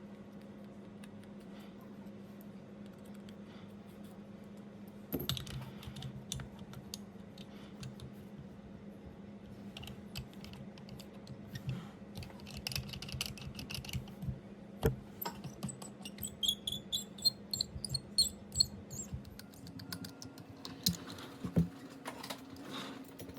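Small clicks and taps of repair tools on an iPhone 11 being opened for a battery replacement, over a steady low hum. A quick run of high ticks comes about two-thirds of the way in.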